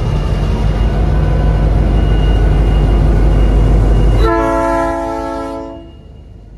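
Norfolk Southern diesel locomotive passing close by with a heavy engine rumble, its freight cars following. About four seconds in the rumble drops away and a multi-tone train horn sounds for about a second and a half, then cuts off.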